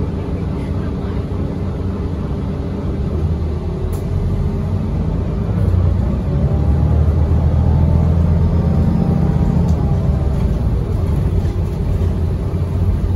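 Interior of a 2017 Gillig BRT transit bus in motion: steady engine and road rumble that swells for a few seconds in the middle, with a faint rising whine, then eases back.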